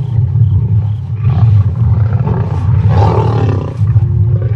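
Lions growling continuously and snarling as they squabble over a kill in a feeding frenzy, with harsh snarls about a second in and again around three seconds in. A faint wavering higher call sounds near the start.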